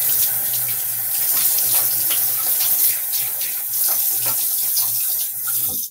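Bathroom sink tap running steadily with splashing as someone rinses during a wet shave, with a low hum under the rush of water. The water shuts off just before the end.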